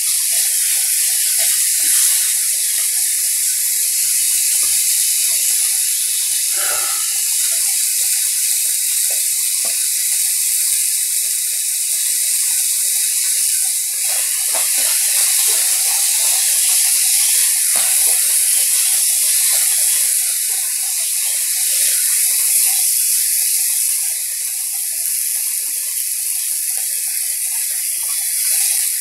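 Beef rib meat sizzling steadily on a hot iron griddle, a constant high hiss with a few faint taps now and then.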